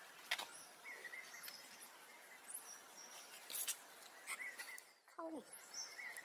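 Faint outdoor ambience with short bird-like chirps recurring every second or two and a few sharp clicks, and one call that slides down in pitch about five seconds in.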